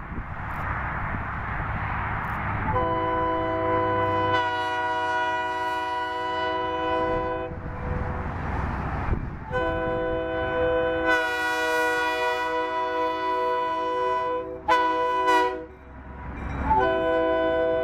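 Diesel switcher locomotive approaching with its engine rumbling, sounding its multi-chime air horn in the grade-crossing pattern: two long blasts, a short one, then a long one that runs on.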